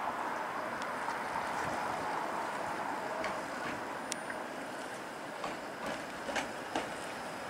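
Flexity Outlook streetcar rolling slowly around a curve of track, a steady running noise with several sharp clicks from the wheels on the rails in the second half.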